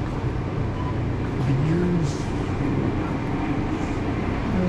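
Steady low rumble of supermarket background noise, with a brief indistinct voice about one and a half seconds in.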